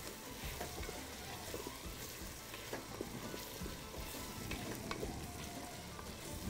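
Garlic-ginger, chilli and dried limes frying in a metal pot on a gas burner, a steady sizzle, while a wooden spoon stirs and now and then taps and scrapes the pot.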